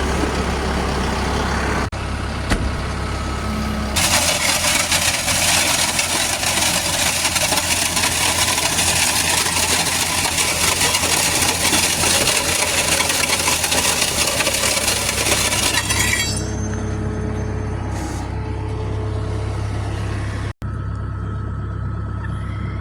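Tractor engine running steadily under load, with a loud even hiss over it for a long stretch in the middle that stops suddenly.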